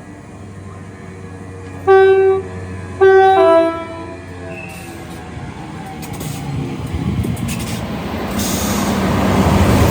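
A train's two-tone air horn sounds two short blasts: the first on the low note alone, the second starting low and stepping up to the high note. The rumble of the approaching train then builds steadily louder.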